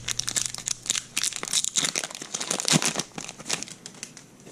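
Shiny foil wrapper of a Pokémon booster pack being torn open and crinkled by hand: a dense run of sharp crackles that thins out near the end.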